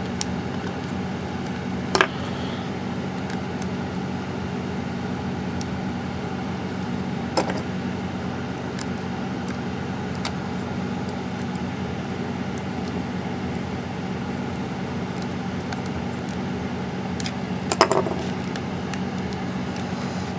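Steady low hum of room noise, with a few sharp clicks and small ticks as a precision screwdriver and the plastic mouse case are handled while the case screws are driven back in.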